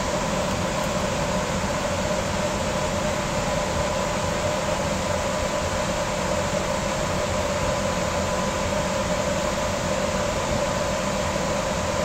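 Air conditioning running inside the cabin of a 2000 Blue Bird Mini Bird small school bus: a steady whirring hiss with a constant hum.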